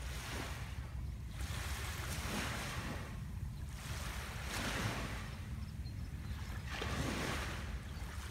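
Small waves lapping on a sandy beach: soft washes that swell and fade about every two and a half seconds, four in all, over a steady low rumble.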